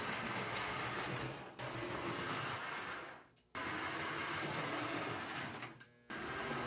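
American Flyer S-gauge model train running on the layout track, a steady mechanical rumble of motor and wheels on rail. It fades away and cuts back in twice, about halfway through and near the end.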